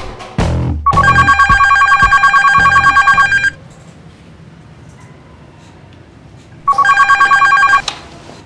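Telephone ringing with a fast, trilling electronic ring: one long ring of about two and a half seconds, a pause, then a shorter second ring, signalling an incoming call.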